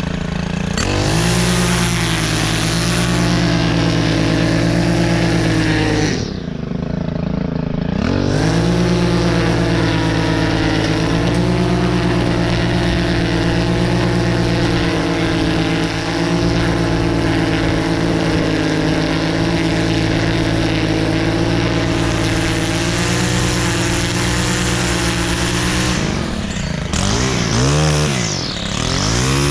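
STIHL FS 131 R string trimmer's 4-MIX engine running at high throttle while the line cuts grass along a sidewalk edge. The revs fall off and climb back about six seconds in, and again briefly near the end.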